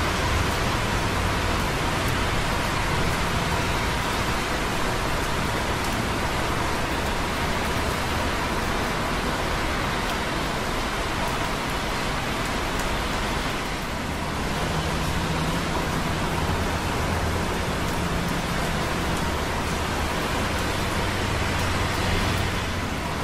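Light rain with busy traffic on wet roads below: a steady hiss of rain and tyres, with close-by drips of rain on concrete. The low traffic rumble swells and eases, growing stronger about halfway through.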